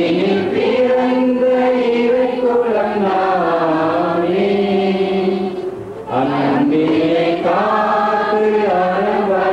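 A slow hymn sung in long held notes, with a short break for breath about six seconds in.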